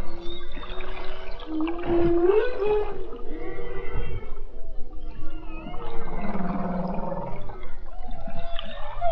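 Whale song: a run of low moans and gliding calls, some rising and some falling in pitch, with higher squeals above them.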